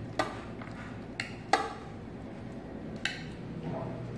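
Metal spoon clinking against a glass bowl four times while marinade is spooned out, the loudest clink about a second and a half in.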